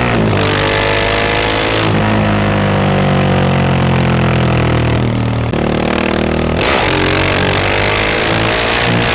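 Stage 2-tuned KTM 690 SMC R supermoto's single-cylinder engine riding under way. It pulls with the throttle open, then eases off about two seconds in with the pitch slowly falling. There is a sudden change near five and a half seconds, and the throttle comes back on around seven seconds in.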